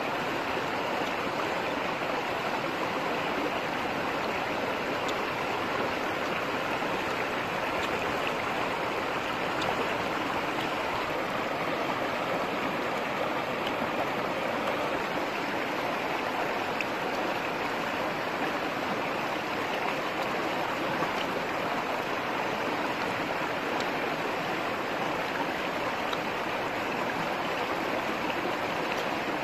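Shallow rocky stream rushing over stones, a steady, unbroken rush of water.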